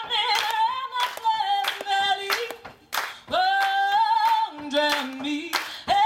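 Unaccompanied folk singing in two-part harmony with long held notes, over hand claps keeping a steady beat.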